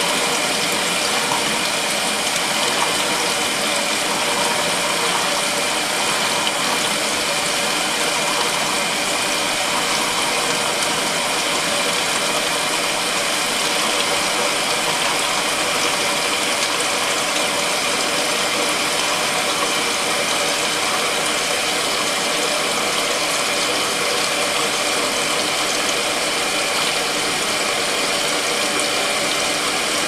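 Kuppet twin-tub portable washer running its wash cycle, the motor and wash impeller churning water and towels in the tub: a steady mechanical drone with a high tone running through it.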